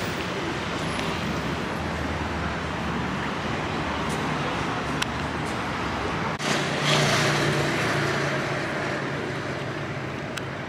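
City street traffic noise: a steady rumble and hiss of passing cars. About six and a half seconds in it grows louder, with a vehicle's engine humming close by for a few seconds before easing off.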